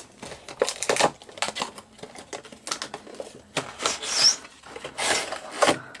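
Cardboard doll box being opened and its packaging handled: rustling, scraping and tearing card, with many small clicks and a few longer rasps.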